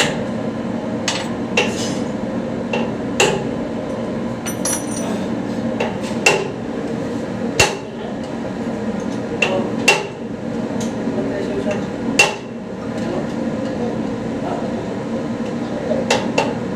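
Irregular metal-on-metal strikes, about a dozen spread unevenly, each with a short ring, over a steady workshop hum; typical of a hammer or hand tool on metal parts during a turbocharger overhaul.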